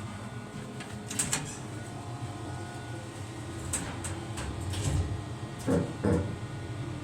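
Thyssenkrupp lift with a steady low hum and several sharp mechanical clicks, then two heavy thumps in quick succession near the end.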